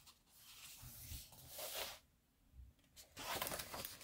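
Faint rustling of a paperback coloring book's page being turned and smoothed down by hand, with a brief pause midway and a cluster of short paper scrapes near the end.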